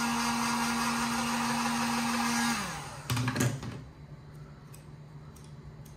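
Handheld electric heat gun running with a steady fan hum and rush of air. It is switched off about two and a half seconds in, and its pitch falls as the fan winds down. A brief clatter follows as it is set down on the countertop, then a few faint clicks of the plastic trim being handled.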